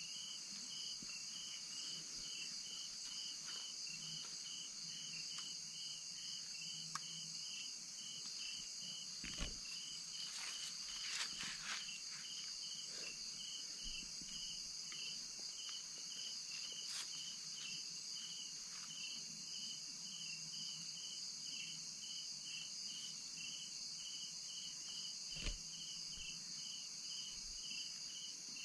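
Night insect chorus, with crickets giving a steady high-pitched trill and a separate chirp pulsing a few times a second. A few brief soft knocks stand out, the loudest about nine seconds in and near the end.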